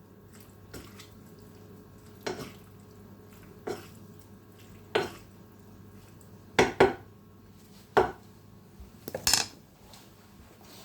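A cooking utensil clacking against a pan while a chicken stir fry is stirred: about eight short knocks, spaced a second or more apart, with a pair close together in the middle and another near the end.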